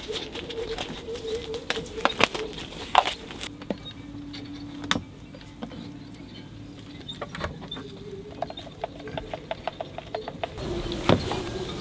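Small clicks, taps and scrapes of epoxy being mixed by hand: a wooden stir stick knocking and scraping around a clear plastic mixing cup, after nitrile gloves are pulled on, with a quick run of even ticks near the end. A faint steady hum sits underneath.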